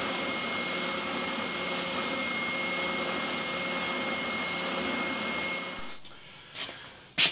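Benchtop oscillating belt sander running steadily with a high whine while thin wooden guitar binding strips are fed through a thicknessing jig against the belt, sanding the rough-cut strips down to an even thickness. The sander sound cuts off about six seconds in, followed by a couple of light knocks.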